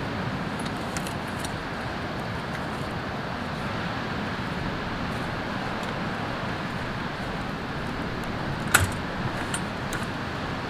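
Steady rushing outdoor background noise, with faint crackles from a wood fire burning in a small fire pit. A single sharp knock comes near the end, as gear is handled by the chair.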